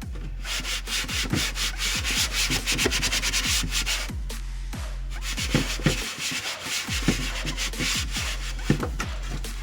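Rapid scrubbing strokes on a refrigerator's side container, heaviest in the first few seconds and then sparser. Upbeat electronic background music with a steady bass beat plays underneath.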